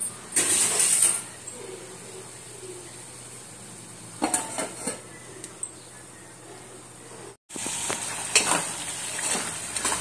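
Metal cookware clattering: a steel plate lid and a spoon knocking against an aluminium cooking pot, in short bursts about half a second in and about four seconds in. Near the end, a spoon clinking and scraping in the pot as the curry is stirred.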